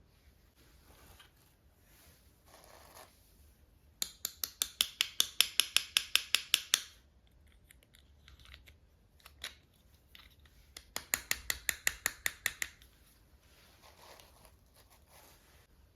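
Scissors snipping in two quick runs of sharp clicks, about seven a second: the first lasts about three seconds, the second, shorter one comes about two-thirds of the way through. Faint handling noise comes in between.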